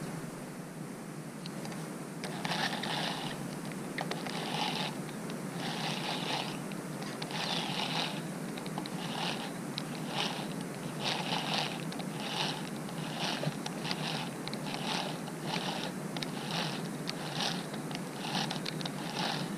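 Baitcasting reel being cranked in spurts, its gears whirring with each run of handle turns as line is retrieved. It starts about two seconds in with longer runs of about a second, then goes into short quick spurts about two a second.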